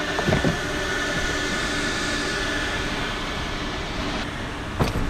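Steady mechanical hum with a low constant tone, broken by a short knock about half a second in and another near the end.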